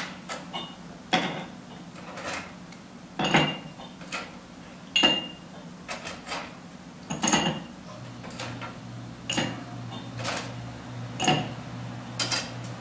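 Ice cubes clinking as they are picked from a metal ice bucket with tongs and dropped into a glass mixing glass to fill it, about one clink a second, some with a brief glassy ring.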